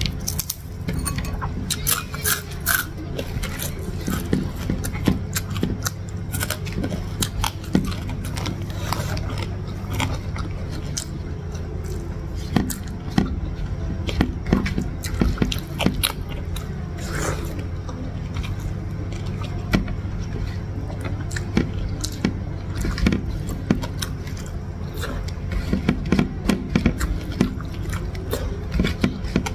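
Close-miked eating by hand: fingers picking apart fried salted fish and gathering rice on a ceramic plate, with chewing and crunching, heard as many short clicks and scrapes over a steady low hum.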